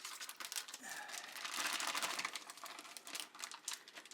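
Beef liver sizzling and crackling in a pot on high heat, a dense hiss full of fine pops that grows loudest about halfway through.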